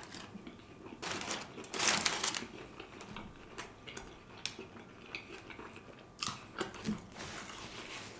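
A man chewing a mouthful of sandwich close to the microphone: wet mouth clicks and light crunches, with a louder rustle about two seconds in.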